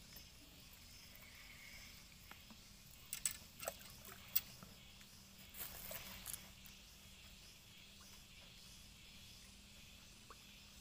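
Faint outdoor background with a handful of short clicks and brief rustles between about three and six seconds in, from fishing rods and reels being handled.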